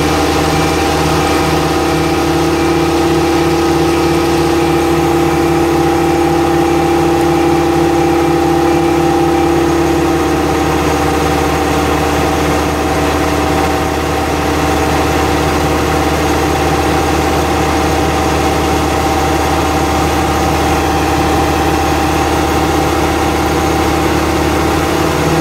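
The Deutz diesel engine of a Metso Norberg CV 100 screening plant running at a steady speed, a continuous mechanical drone.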